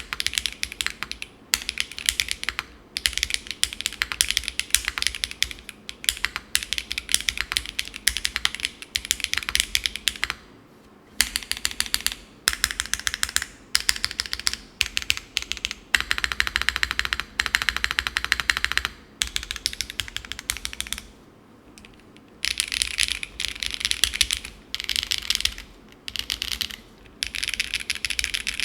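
Winter R2 mechanical keyboard with an aluminium full plate, tadpole mount, no foam, Keygeek Cera R2 switches and GMK Beige keycaps being typed on in fast runs of keystrokes. The clicking stops in brief pauses, with longer gaps about ten seconds in and again around twenty-one seconds.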